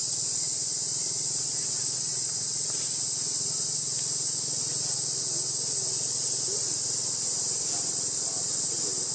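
Steady, unbroken high-pitched chorus of insects droning in the surrounding trees.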